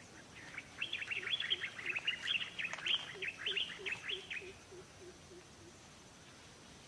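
A bird's rapid chattering call: a dense run of quick, high chirps lasting about four seconds, then stopping.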